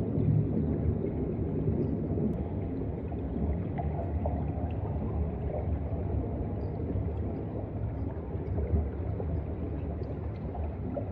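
Underwater ambient noise picked up by a submerged camera: a steady low rumble and surge of moving seawater, with a few faint scattered clicks.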